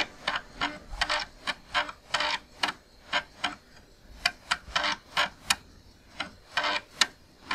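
Floppy disk drive clicking as its head steps, in irregular clicks about two to three a second, the sound of an Amiga drive seeking at the Kickstart insert-disk screen.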